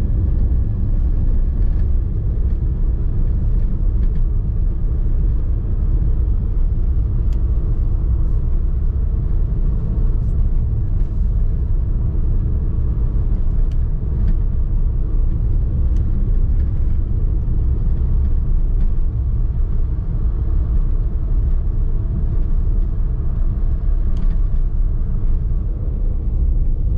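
Car cruising at highway speed, heard from inside the cabin: a steady low rumble of road and engine noise.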